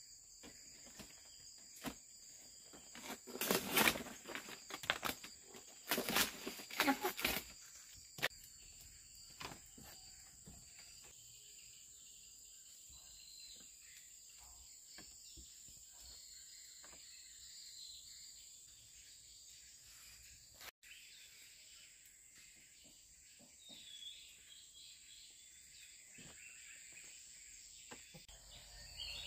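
Steady high-pitched chorus of forest insects, with two louder bursts of noise about three and six seconds in.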